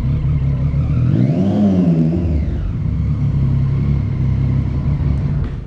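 Motorcycle engine running at low speed, close to the rider's camera. Its pitch rises and falls once about a second and a half in, and it cuts off near the end.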